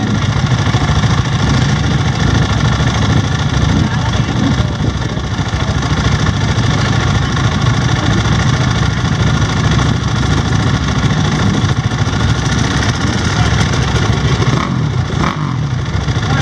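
KTM 450 EXC single-cylinder four-stroke dirt bike engine idling steadily.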